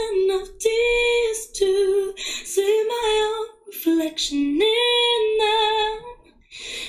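A woman singing unaccompanied, in short held notes broken by brief pauses between phrases, with one lower note a little past the middle.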